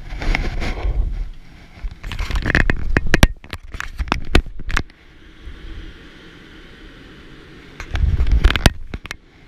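Scraping and crackling noises with sharp clicks and knocks, in three spells: near the start, from about two to five seconds in, and again about eight seconds in.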